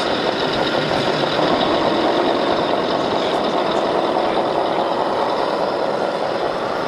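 Steady, loud rushing spray of water washing a toy, with a faint mechanical hum beneath it.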